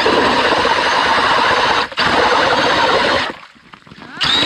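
Cordless drill spinning an ice auger, grinding down through lake ice. The drilling noise is loud and steady, breaks off for a moment about two seconds in, drops away after about three seconds, and starts again near the end.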